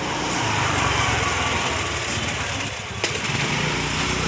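Small engine of a motor vehicle running steadily close by, a low pulsing rumble, with a single sharp click about three seconds in.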